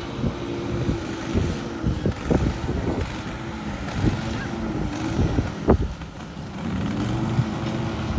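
Riding lawn mower engine running steadily as it mows, its pitch sagging briefly about six seconds in and then climbing back. Gusty wind buffets the microphone throughout.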